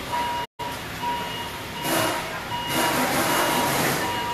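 An electronic beeper sounding short repeated beeps at two pitches, over a steady hiss that grows louder about two seconds in. The sound drops out completely for a moment about half a second in.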